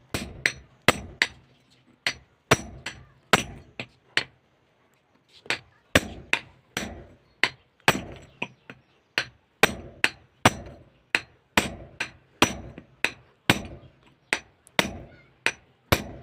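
Repeated hammer blows on metal, about two a second, each a sharp knock with a brief ring, with a short pause about four seconds in. They are driving the worn, cut shaft (spindle) out of a stand fan motor's rotor, set on a pipe support.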